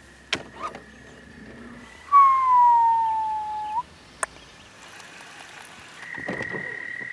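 Baitcasting reel spool whining through a cast: one loud tone of under two seconds that slowly falls in pitch and stops abruptly as the spool is halted, with a few light clicks of the reel before and after.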